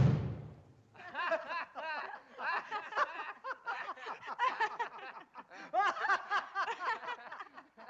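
Two men and a woman laughing together in quick, overlapping bursts of chuckles and giggles. The last orchestral chord of the song dies away in the first second, before the laughter starts.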